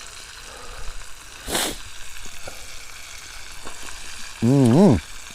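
Battered catfish nuggets frying in hot oil: a steady sizzle with small crackles and one louder burst of hiss about a second and a half in. Near the end a man gives a short hum.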